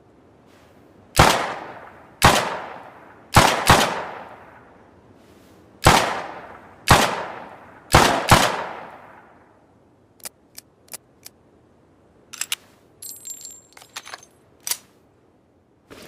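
Homemade revolver sound effect: eight sharp gunshot-like bangs, each ringing out for about a second, some fired in quick pairs. Then four light clicks in quick succession and a burst of metallic clicking and jingling, like a revolver's hammer and cylinder being worked.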